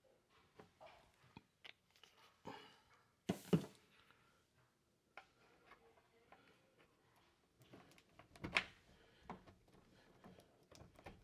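Scattered light metal clicks and knocks as a greased steel door-hinge pin is worked up into the hinge, with a louder pair of knocks a little over three seconds in and another a little past eight seconds.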